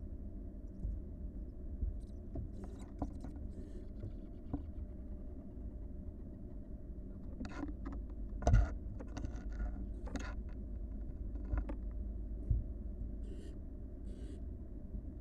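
Barn owl nestlings giving raspy hissing calls in a series of short bursts, over a steady low hum. Two thumps cut through, the louder one about halfway through.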